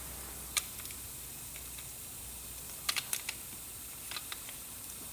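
Scattered small clicks and taps of parts and tools being handled while the fuel filter is pulled out of its housing: one click about half a second in, a quick run of four around three seconds in, and two fainter ones a second later, over a low hiss.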